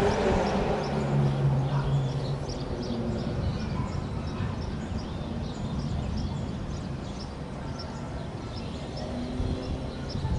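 Many small birds chirping in quick, short calls throughout, over a low rumble that fades over the first few seconds.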